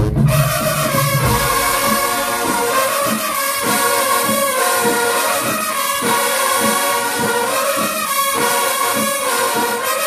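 Marching band brass section (trumpets, trombones, saxophones and sousaphones) playing loud chords in a punchy rhythm with short breaks. The deep bass drops out about a second in, leaving the higher horns.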